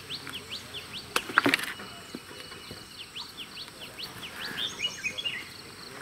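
Small birds chirping in series of quick falling notes, with a couple of sharp clicks about one and a half seconds in standing out as the loudest sounds.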